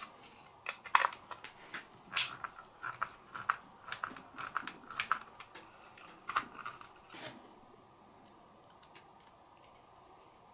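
Irregular light clicks and taps of small RC-car parts being handled and fitted, stopping about seven seconds in.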